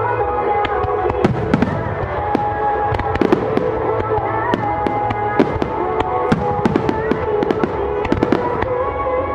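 Aerial fireworks bursting: a rapid, irregular string of sharp cracks and pops, with music playing steadily underneath.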